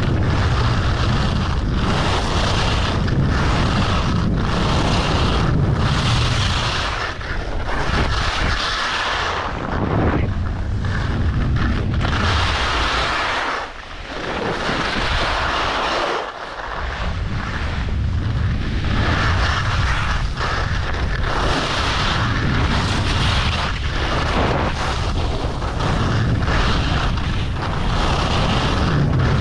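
Wind buffeting a GoPro's microphone at skiing speed, with ski edges scraping over groomed snow. The noise swells and eases about once a second with the turns, and drops briefly twice around the middle.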